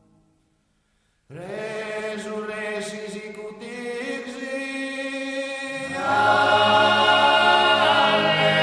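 Sardinian cuncordu: male voices singing a sacred Latin chant a cappella. After about a second of silence the singing begins, and around six seconds in a deep bass voice joins and the chord grows louder.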